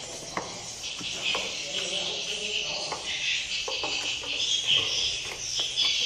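Dense, continuous high-pitched twittering of a colony of edible-nest swiftlets, with scattered sharp clicks through it.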